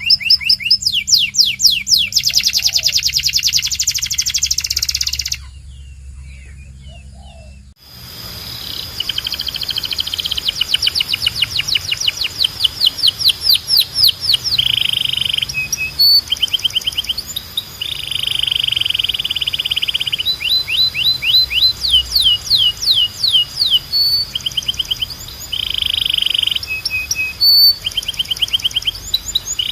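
Domestic canary (Belgian canary) singing its training song: fast trills of repeated sweeping notes alternating with buzzy rolls. About five seconds in the song stops for a couple of seconds, then starts again.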